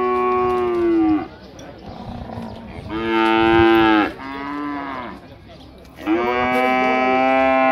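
Nelore zebu cattle mooing: three long moos, the first fading out about a second in, the second about three seconds in with a short follow-on call, and the third starting about six seconds in and still going at the end.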